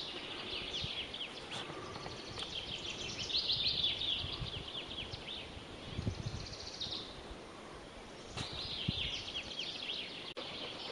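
Small songbirds singing in phrases of rapid, high, falling chirps, each phrase lasting a second or two, with a low thump about six seconds in.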